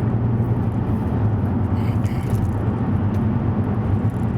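Alfa Romeo Brera's 3.2 V6 engine running steadily while driving, with road noise. It runs smoothly now that the ignition coil and spark plug of the misfiring cylinder have been replaced.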